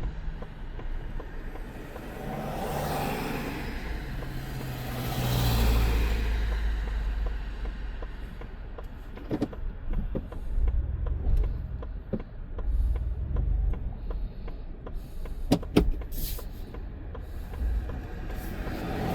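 Motor vehicle rumbling at low speed, with two swells of passing noise in the first six seconds, then scattered sharp clicks and knocks.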